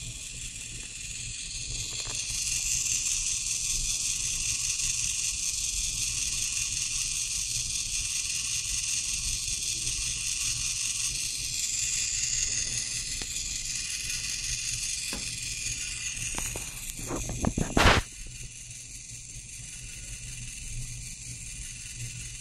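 Hobby RC servo running continuously under Arduino control as it drives the claw linkage of a 3D-printed 8mm film gate, a steady high hiss-like whir of motor and gears. A few seconds before the end comes a quick run of clicks with one sharp knock, and after it the whir is quieter.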